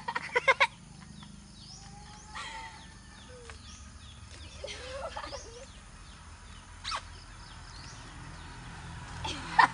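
Chickens clucking with small birds chirping, over a few sharp knocks: a quick cluster in the first half second and one about seven seconds in.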